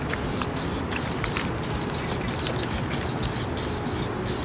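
Aerosol spray-paint can hissing in rapid short bursts as a mural is sprayed, with music playing underneath.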